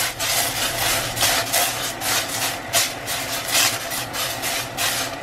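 Eggplant slices simmering and sizzling in sauce in a stainless frying pan as the pan is swirled on the burner, the sizzle and scrape surging about three times a second.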